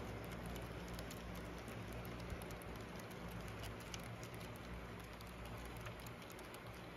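HO-scale model trains running: a steady low motor hum with a quick, irregular patter of small clicks from the wheels rolling over the track.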